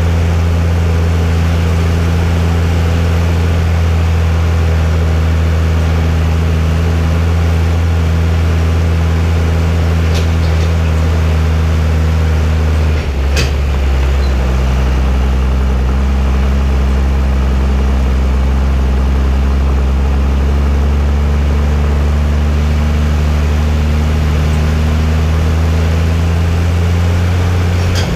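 John Deere 3650 tractor's six-cylinder diesel engine running steadily under load while hauling about 21 tonnes of potatoes. About halfway through, the engine note dips briefly and then settles at a slightly lower pitch, with a click or two around the change.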